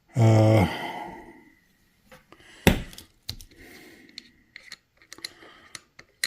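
A squeeze bottle of Dijon mustard sputters briefly as it is squirted, then one sharp click and several light clicks and knocks of bottles and kitchen items being handled.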